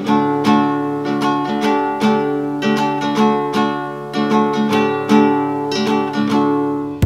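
Acoustic guitar music: chords strummed in a steady, bouncy rhythm as a short theme jingle.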